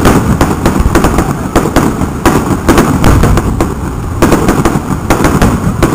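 Aerial firework shells bursting in quick succession: a dense run of sharp bangs, several a second, over a continuous low rumble.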